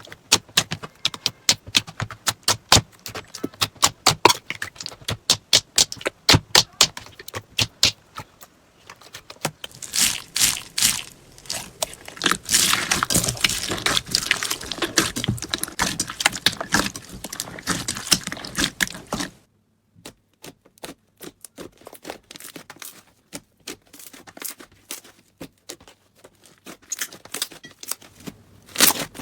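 Slime being pressed and worked by hand, giving rapid crisp pops and clicks. In the middle is a dense stretch of crackling that cuts off abruptly about two-thirds of the way through, followed by sparser, quieter clicks.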